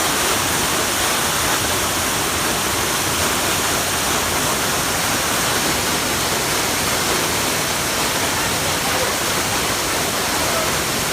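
Waterfall: a steady, even rush of falling water, loud and unchanging.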